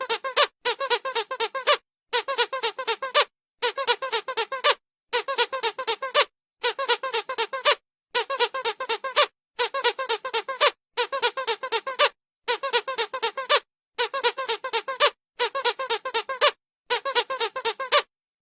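Squeaky dog toy squeezed rapidly, each burst of about a second holding a quick run of high squeaks, repeated over and over with short pauses between.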